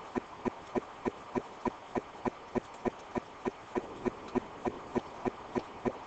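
A steady, evenly paced ticking, about three clicks a second.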